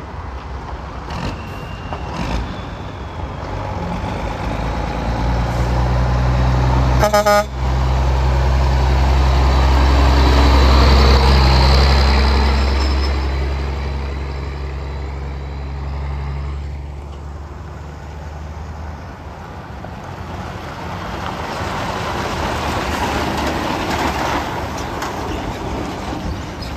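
Tri-axle dump truck's diesel engine pulling past close by, its low rumble building to its loudest about ten to twelve seconds in, then fading. A short horn blast sounds about seven seconds in. Near the end a second heavy truck approaches.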